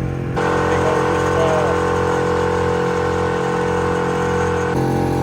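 Engine running at a steady speed, with abrupt jumps in the sound about half a second in and near the end where clips are spliced together.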